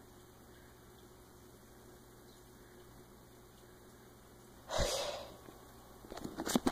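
Quiet room tone with a low steady hum; about five seconds in, one sudden short sneeze-like burst of breath from a person, then a few light clicks near the end.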